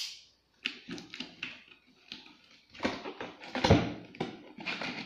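Cardboard box being handled on a tiled floor: irregular taps, scrapes and rustles of cardboard, the loudest a knock about two thirds of the way in.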